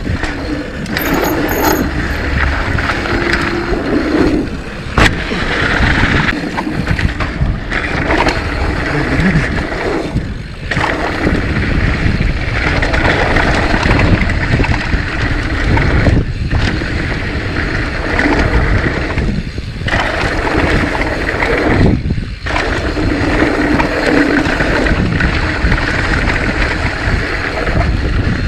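Mountain bike being ridden down a trail: a steady rush of wind and tyre noise with the bike rattling, and a sharp knock about five seconds in.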